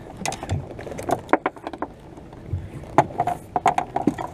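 Irregular knocks and clicks of a just-landed flounder and landing net being handled against the fibreglass hull of a small boat.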